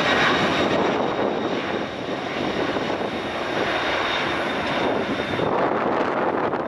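Jet engines of a Boeing 767-300 airliner running at low power as it taxis. A steady rush of jet noise with a thin high whine, easing slightly about a second in.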